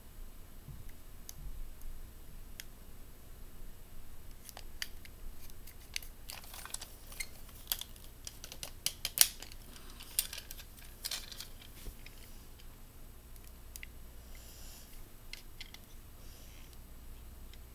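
Scattered plastic clicks and rattles from a small plastic toy gun being handled, bunched in the middle with one sharper click about nine seconds in.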